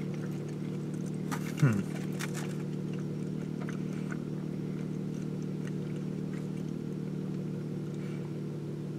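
Steady low hum of a car idling, heard from inside the cabin, with one brief downward-sliding sound about a second and a half in.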